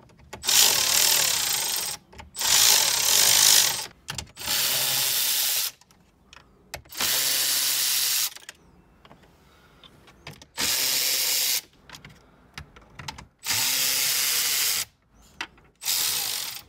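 Cordless electric ratchet with socket extensions running in about seven short runs of a second or so each, with pauses between, backing out 7 mm bolts.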